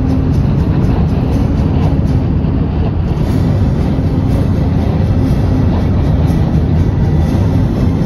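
High wind rushing against a moving vehicle, mixed with its road noise: a loud, steady low rumble with no break.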